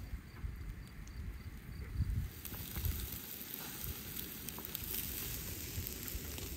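Lamb and vegetable kebabs sizzling over a charcoal grill, a fine crackling hiss that grows louder about two and a half seconds in. Underneath is a low gusting rumble of wind on the microphone.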